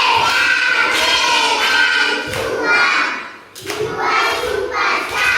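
A class of young children's voices calling out together in chorus, with a short break about three and a half seconds in.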